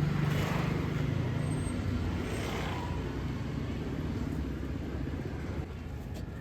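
Motor vehicle engine running with a steady low hum, with two brief swells of noise about half a second and two and a half seconds in.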